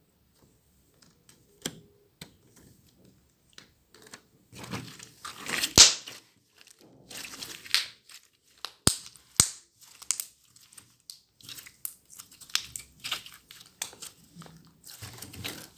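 Slime being pulled and squished by hand, with irregular sticky crackling and several sharp pops. It is faint for the first few seconds and gets busier after about four seconds.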